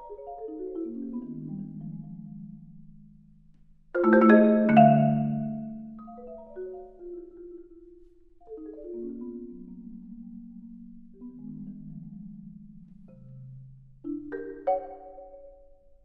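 Solo concert marimba played with yarn-wound mallets: cascading runs of notes falling in pitch, broken by a loud accented chord about four seconds in and another sharp accent near the end.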